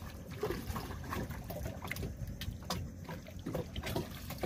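Small outrigger boat sitting on calm water: water lapping against the hull with irregular small knocks and splashes.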